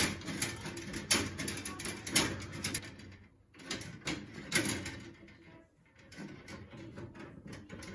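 Twist-on plastic wire nuts being worked off the spliced wires of a fluorescent fixture's ballast, with irregular clicks and scraping of plastic and wire under the hands.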